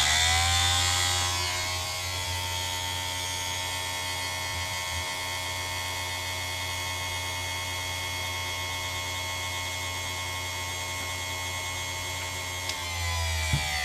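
Chicago Electric chainsaw sharpener's electric motor running with a steady whine and low hum, powered through an inverter from a solar-charged 12-volt battery bank. Its pitch settles lower over the first couple of seconds after switch-on and rises a little near the end.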